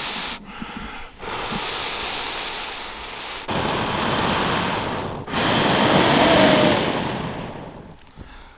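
A person blowing hard on a smouldering cramp-ball ember under a bundle of dry twigs, in several long breaths a second or a few seconds apart, to coax the embers into flame. The last blow is the loudest and fades out near the end.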